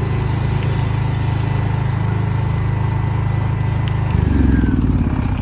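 Bajaj 12.5 kW soundproof petrol generator set running with a steady engine hum; about four seconds in the sound shifts and grows louder.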